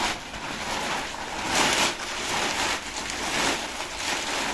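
Plastic shopping packaging rustling and crinkling as groceries are handled and unpacked, swelling louder a few times.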